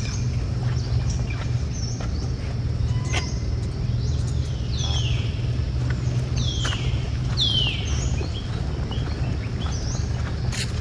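High animal calls over a steady low hum: short repeated chirps, then three calls sliding down in pitch near the middle, with a few light clicks.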